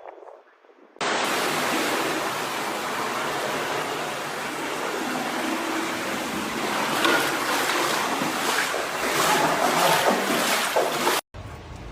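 Loud, steady rushing of water that starts abruptly about a second in and surges a little in the later seconds. It cuts off sharply about eleven seconds in.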